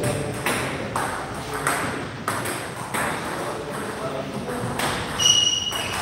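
Table tennis balls clicking off bats and the tables in rallies, with irregular sharp taps throughout. Short high squeaks come twice near the end.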